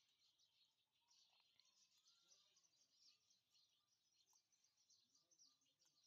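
Near silence, with faint bird chirping.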